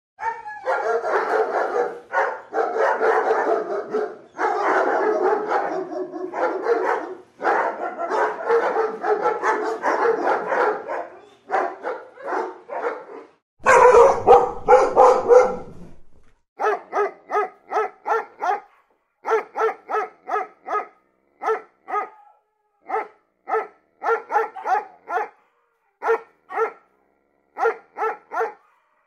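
Dog barking: dense, almost unbroken barking for the first ten seconds or so, a louder, deeper burst near the middle, then short single barks in quick runs of two to five.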